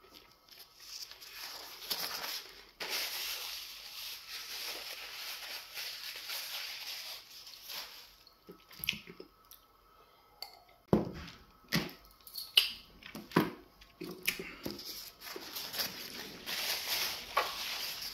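Close-miked eating and drinking sounds: wet slurping and mouth noises, swallows of water from a glass, and a few sharp knocks and lip smacks in the second half.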